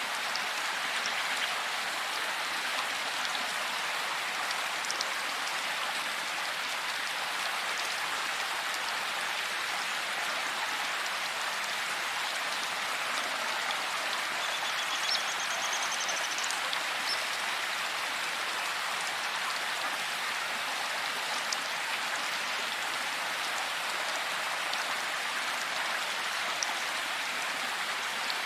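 Steady rain falling in a forest: an even hiss of rainfall with scattered drops ticking, and a brief faint high-pitched trill about halfway through.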